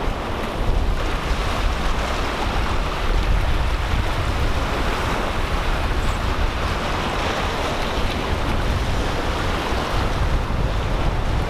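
Waves breaking and washing over a rocky reef shore, a steady rushing surf, with wind buffeting the microphone in low gusty rumbles.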